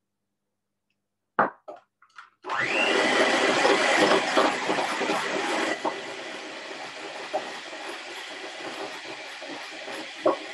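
A knock and a few small clicks, then an electric hand mixer starts about two and a half seconds in, its motor whine rising as it spins up. It then runs steadily, beaters whisking coconut cream in a glass bowl, somewhat quieter from about six seconds in.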